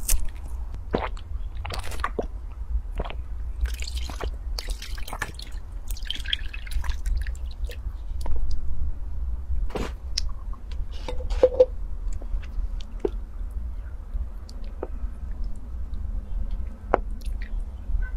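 Close-miked sipping from a cup, then milk tea poured into a glass bowl, and a wooden spoon stirring and squishing a thick lotus-root-starch mixture. Short scattered clicks and wet sounds over a steady low hum.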